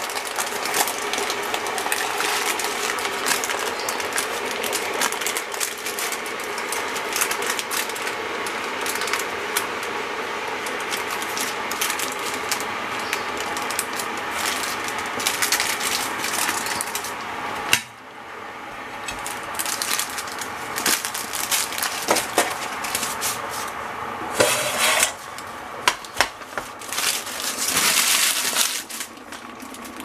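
Baking paper crinkling and rustling as it is peeled off a baked cheesecake by hand. It dips briefly a little past halfway, then comes back in short bursts near the end.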